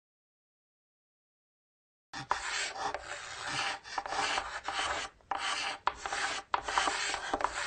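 About two seconds of silence, then chalk scratching across a chalkboard in quick strokes, with short pauses and sharp taps between words.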